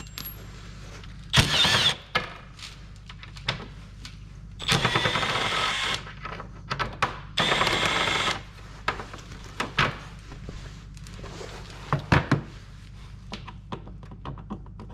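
Cordless drill/driver running in three short bursts with a wavering motor whine, backing screws out of an ATV's plastic body panels. Sharp clicks and knocks of tools and plastic being handled fall in between.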